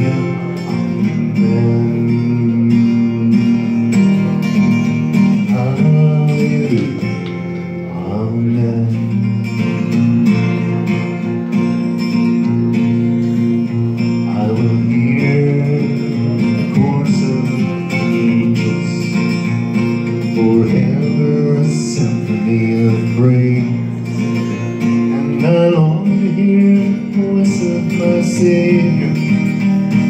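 Acoustic guitar strumming chords in a steady song accompaniment, with a man's singing voice over it at times.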